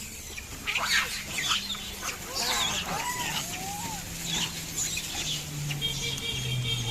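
A burst of short, sharp chirping and squealing animal calls, several in quick succession over the first few seconds, then fading out.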